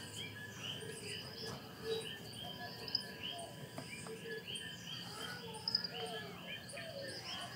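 Birds chirping and calling over a steady trilling of insects, with a couple of light clicks partway through.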